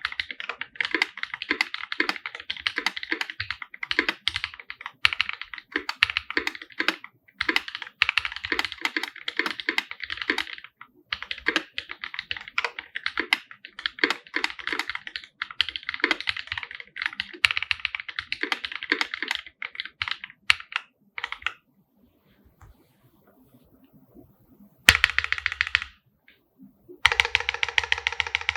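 Typing on a 50% custom mechanical keyboard with an aluminum case, OG Holy Panda tactile switches and GMK Laser keycaps: a fast, dense run of key clacks that stops for about three seconds a little over twenty seconds in, then resumes in short bursts.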